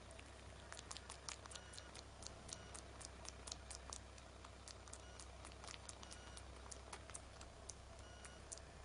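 Faint, irregular clicking, several clicks a second, from a young monkey picking through a cat's fur as it grooms it, over a low steady hum.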